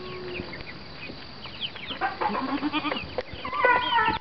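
Farm animals calling over small birds chirping: a quick run of short clucking notes about two seconds in, then a louder, higher-pitched call near the end.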